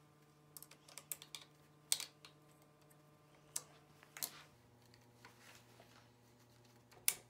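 Scattered light clicks and taps from handling a microSHIFT bar-end shifter fitted with its micro mount: a quick cluster about a second in, then single sharper clicks around two, three and a half, four and seven seconds in. A faint steady low hum sits underneath, dropping slightly in pitch about halfway through.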